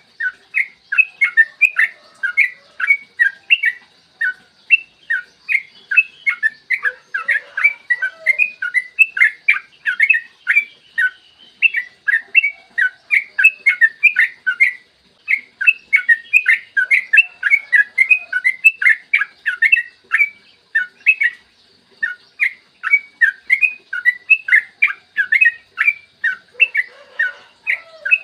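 Yellow-vented bulbul (trucukan) singing a long, fast run of short whistled notes, with a few brief pauses between phrases.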